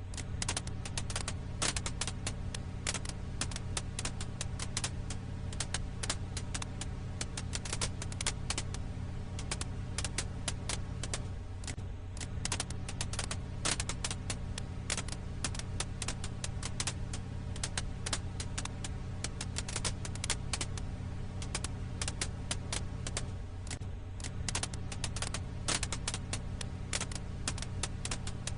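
Firewood crackling in a campfire: dense, irregular snaps and pops over a steady low hum.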